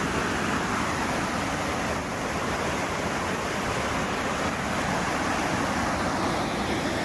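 Steady rush of a river in flood, the water pouring down over the submerged weir and falls.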